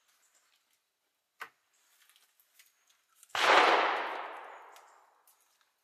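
A single gunshot about three seconds in, sudden and loud, dying away over about two seconds as it echoes. It is not from the rifle on the bench, which is being loaded. Before it come a few light clicks.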